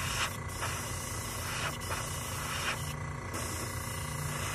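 Paasche airbrush spraying leather dye: a steady hiss of air with a few brief dips as the trigger is eased, over a low steady hum.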